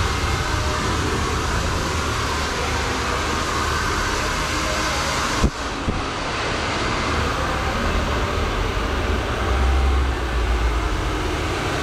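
Hand-held hair dryer blowing steadily close to the head, a constant rush of air, with one brief click about five and a half seconds in.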